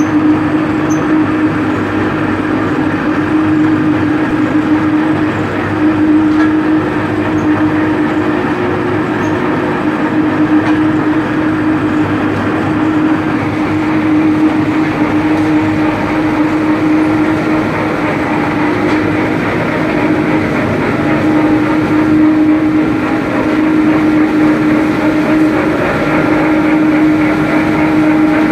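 Rotary drum dryer running: loud, steady machine noise with a constant hum.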